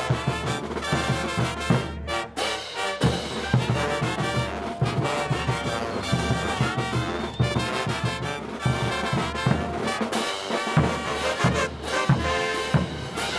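Bolivian brass band playing morenada music: trumpets, trombones and tubas over a steady beat. The sound drops briefly about two seconds in.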